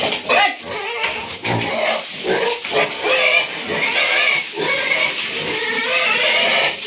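Pigs grunting as they feed with their snouts in metal bowls of wet feed.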